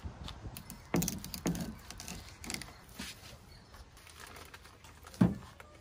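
A whole salmon being shifted about on a plywood board: a few separate soft thumps and knocks against the wood, the loudest one near the end.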